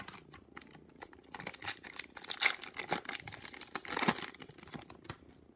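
A hockey card pack's wrapper being torn open and crinkled by hand: a dense run of crackles, loudest about two and a half and four seconds in.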